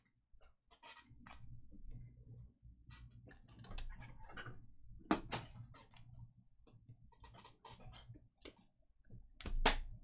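Trading cards being handled and flipped through, giving scattered, irregular sharp clicks and snaps, over a low steady hum.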